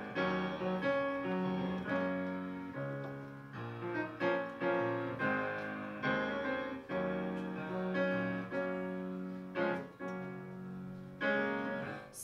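Solo piano playing the introduction to a song: chords struck one after another, each ringing and fading before the next.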